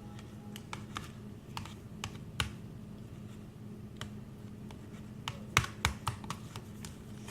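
A utensil clicking and tapping irregularly against a bowl as a slime mixture is stirred, with a cluster of louder clicks about five and a half seconds in.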